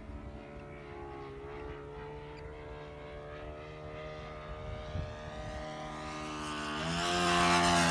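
Magnum .90 four-stroke glow engine of a Great Planes Little Toni RC plane in flight, droning steadily at a distance. Near the end it grows much louder and rises in pitch as the plane comes in close.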